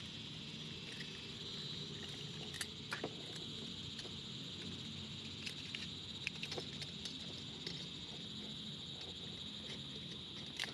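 Light metallic clicks and taps, a few scattered short ones, as small stainless-steel camping stove parts, a cone-shaped reflector and a wire pot stand, are handled and fitted together. Under them runs a steady high-pitched background drone.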